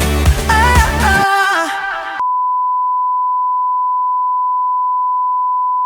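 A pop song with a singing voice ends about two seconds in and is replaced at once by a steady electronic test tone: one pure, unchanging beep held at constant loudness.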